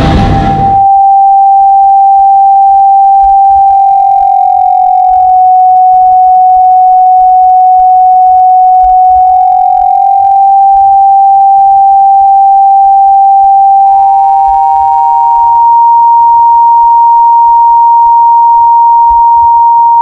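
A loud, steady electronic beep tone held for about fourteen seconds. A second, slightly higher tone then comes in, overlaps it briefly, and carries on alone.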